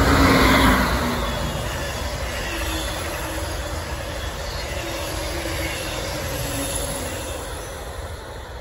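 Amtrak ACS-64 electric locomotive and its stainless-steel passenger cars passing close by on the rails, loudest as the locomotive goes past in the first second, then a steady rumble of wheels on rail that fades as the train moves away.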